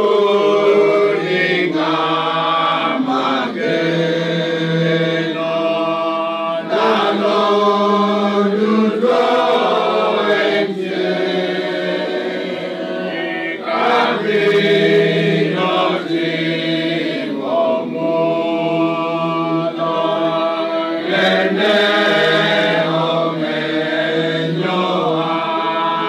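A group of voices singing a hymn together, slow and held, each note sustained for a second or two.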